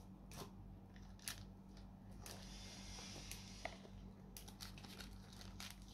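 Faint handling of a cardboard card-deck box: a scatter of light clicks and fingernail scratches as its stiff tuck flap is prised up, with a soft rubbing of card on card between about two and four seconds in.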